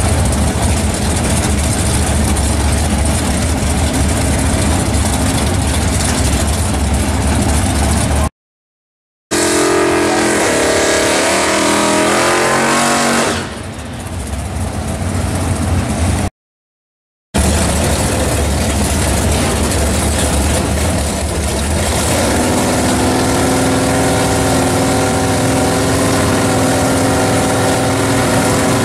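Drag-race V8 engines: a Chevelle SS runs loud and lumpy at idle, then revs up in a rising pitch through a burnout. After a cut, engines are held at a steady fast idle on the starting line. The sound is broken twice by brief edit cuts to silence.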